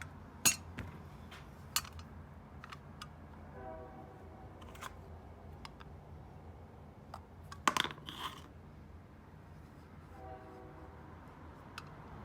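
Sharp, separate clicks and taps of small metal lighter parts being handled, with a louder cluster of clicks and a short scrape about two thirds of the way in.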